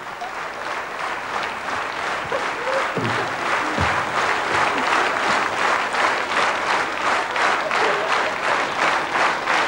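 A large theatre audience applauding. About halfway through, the clapping falls into a steady rhythmic beat in unison.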